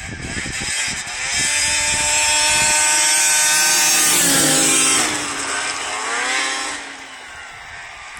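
2006 Arctic Cat Sno Pro 440 two-stroke snowmobile running at speed: its high engine note grows loud as it approaches, drops in pitch as it passes close about five seconds in, rises once more as it revs away, and fades near the end.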